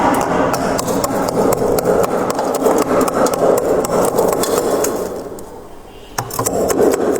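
Close-miked chewing of freezer frost, a dense, continuous crunching full of fine crackles. It eases off briefly about five seconds in and picks up again near the end.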